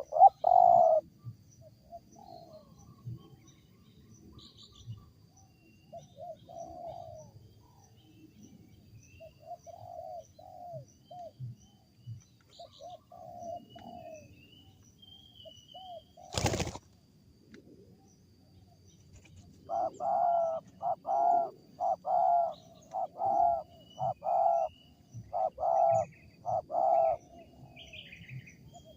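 Wild spotted dove (tekukur) cooing: scattered coos at first, then from about two-thirds of the way in a steady run of coos, about two a second. Its call is one the uploader finds strange. A single sharp click near the middle, with faint chirps of small birds in the background.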